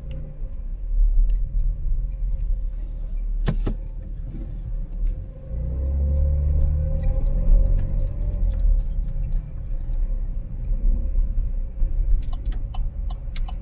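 Car cabin sound while driving slowly: a steady low engine and road rumble with a faint steady hum. There is one sharp click about three and a half seconds in, and a few light clicks near the end.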